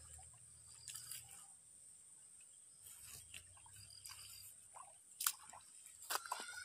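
Faint scattered splashes and squelches of a person moving in shallow water and mud, with a couple of sharper clicks near the end, over a steady thin high-pitched hum.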